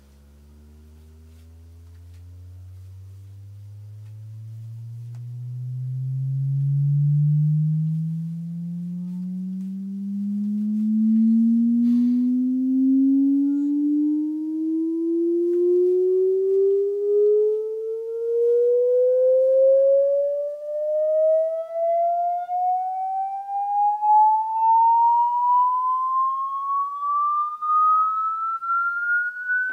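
Sine-wave frequency-response test sweep played on a Nakamichi 700 II cassette deck: a single steady tone with faint overtones, gliding slowly upward from deep bass to about 1.5 kHz. It grows louder over the first several seconds, then wavers in level as it climbs.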